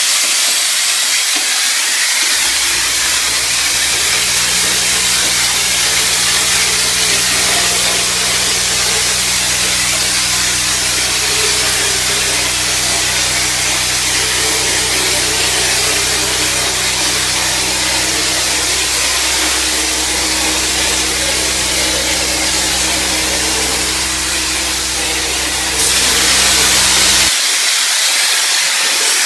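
Steady hiss of compressed air through a drywall texture hopper gun spraying thinned joint compound for orange peel texture. Underneath, a pancake air compressor's motor kicks on about two seconds in, runs with a steady hum, and cuts off shortly before the end.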